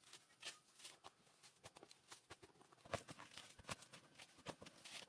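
Faint, irregular clicks and light knocks, a few louder ones near the middle.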